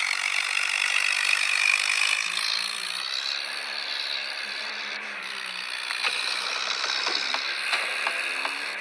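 Heavy diesel machinery, a tractor or bulldozer engine, running steadily, with scattered clicks and rattles in the second half.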